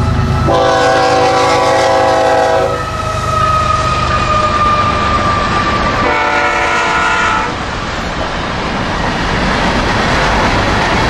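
Freight train passing close by: the BNSF diesel locomotive sounds its horn twice, a long blast about half a second in and a shorter one about six seconds in, over its engine rumble. Covered hopper cars then roll past, wheels running on the rails.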